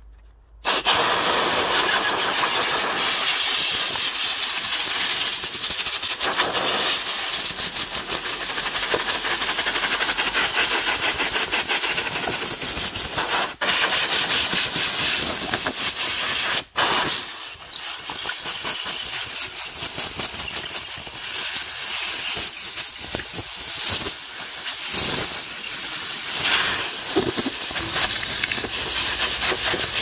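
Compressed air hissing as it blasts dust out of a STIHL TS 420 concrete saw's pleated paper air filter. The blast is nearly continuous, breaks off briefly twice about halfway, then comes in shorter on-and-off pulses.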